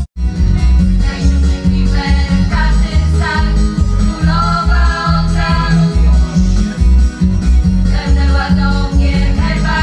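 Women's vocal ensemble singing through a stage PA over amplified accompaniment with a strong bass. A brief dropout comes at the very start.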